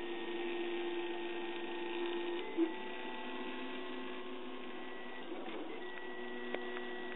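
RepRap Huxley 3D printer running a print: its stepper motors whine at steady pitches that jump to new notes every second or two as the print head changes moves, with a short louder note about two and a half seconds in.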